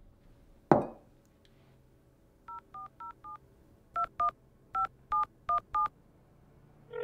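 A single sharp thump, then ten telephone keypad (DTMF) tones as a number is dialled on a smartphone: four quieter beeps in quick succession, then six louder ones, each a short two-note beep.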